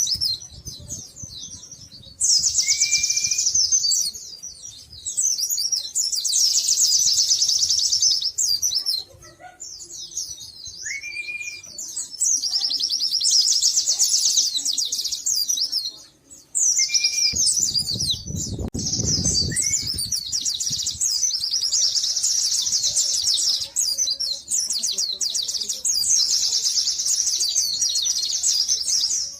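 Pleci (white-eyes) singing in a song duel: long, rapid, high-pitched twittering phrases of several seconds each, broken by short gaps and a few short rising whistles. A brief low rumble comes about two-thirds of the way in.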